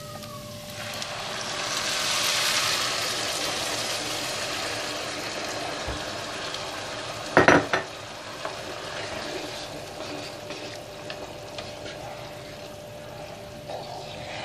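Boiling water poured into a pot of rice and vermicelli toasting in hot butter and oil: a loud hiss and sizzle starts about a second in and eases off over several seconds into a quieter steady hiss. A short clatter of cookware comes a little past the middle.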